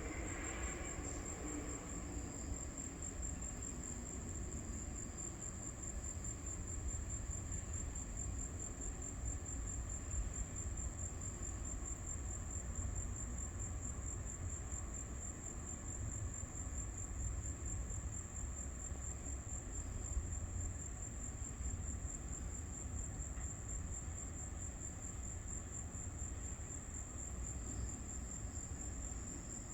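Insects trilling in a steady, high-pitched, continuous chorus, over a steady low rumble.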